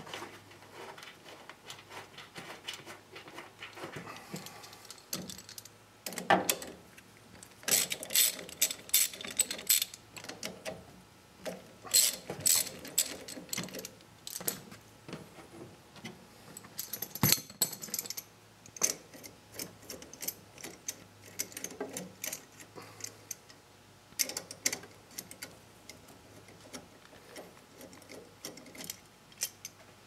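Hand tools working metal fittings while the foot-control cover is taken off a Kubota B2920 tractor: spells of rapid metallic clicking and clinking as bolts are loosened and the knob and arm are worked free, with short pauses between.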